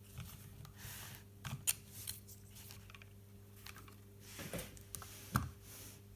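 Scattered small clicks, taps and scrapes of parts being handled at a workbench during reassembly of a DJI Mavic Pro drone, the sharpest about a second and a half in and a louder knock about five seconds in, over a faint steady low hum.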